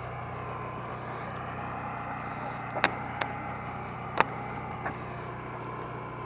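Isolated single shots of airsoft guns, four sharp snaps spaced irregularly, two of them much louder than the others, over a steady low hum.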